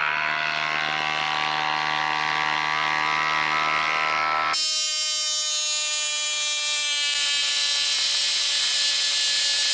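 Hilti Nuron cordless impact driver hammering steadily as it drives a 6-inch lag bolt into a log. About halfway through, the sound jumps abruptly higher in pitch where the recording is sped up, and it keeps running steadily after that.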